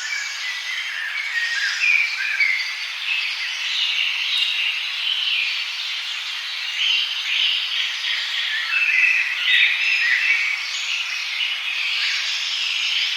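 A chorus of several songbirds chirping and singing over one another in a forest, with dense overlapping short chirps and trills that never stop.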